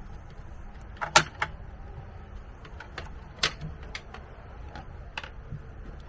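Scattered clicks and knocks of screwdrivers and parts being handled on a floor during an RV converter swap, the sharpest about a second in, over a low steady hum.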